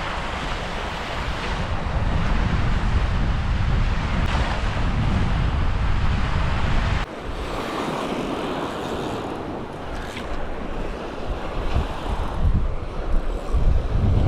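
Wind buffeting the microphone over the steady wash of surf on the beach. The level drops abruptly about halfway through, then rises again.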